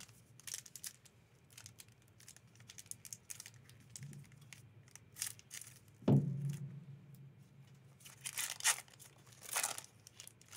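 A foil trading-card booster pack wrapper crinkling and tearing as it is handled and pulled open by hand. The crackles come in short irregular bursts, busiest near the end, with a single knock about six seconds in.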